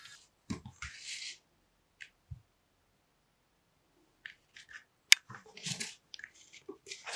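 A folded paper greeting card being handled on a wooden table: a soft thump and a papery swish about half a second in as it is shut, a stretch of near silence, then a sharp click about five seconds in followed by more paper rustling and light taps.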